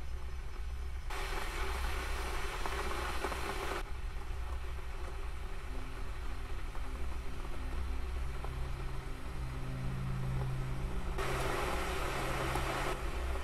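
A steady low hum with stretches of hiss that start and stop abruptly. Low droning tones come in about halfway through. The last stretch of hiss, near the end, comes from an electric kettle heating water.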